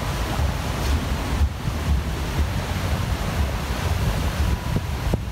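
Strong wind buffeting the microphone: a steady rushing roar with a gusting low rumble.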